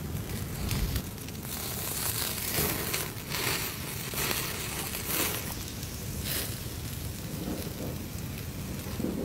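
Wood fire crackling, with meat on skewers sizzling and hissing over the flames; the crackles and hiss come in louder bursts from about two to six seconds in.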